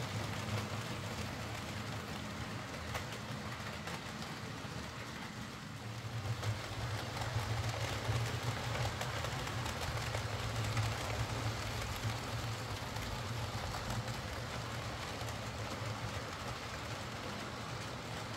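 OO gauge model trains running on a layout: a steady electric-motor hum with the rumble of wheels on the track. It grows louder from about six seconds in for several seconds as a train passes close.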